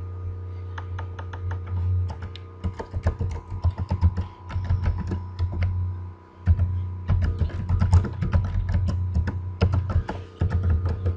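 Typing on a computer keyboard: quick keystrokes in runs, with a short pause about six seconds in, over a steady low hum.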